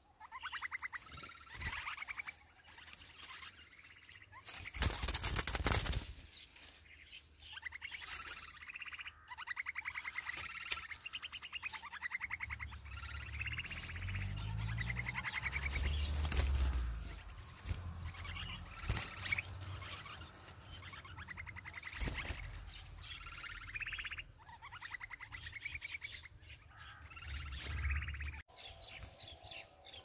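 Nestlings begging with rapid, buzzy chirping calls in repeated short bursts. A loud rustling burst comes about five seconds in, and a low rumble runs through the middle.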